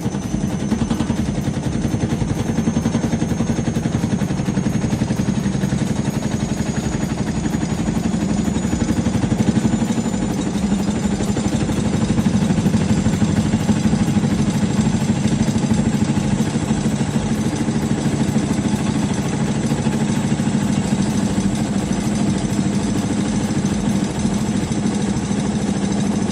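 IFB front-load washing machine drum spinning with a loud, rapid rattling rumble and a faint high motor whine that slowly rises in pitch. It is the 'khad-khad' spin noise that points to worn drum bearings or a failing spider.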